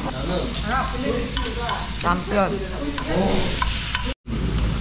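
Hanwoo beef sizzling in a hot pan on a tabletop grill as it is turned with tongs, with short bursts of voices over it. The sound cuts out completely for a moment about four seconds in.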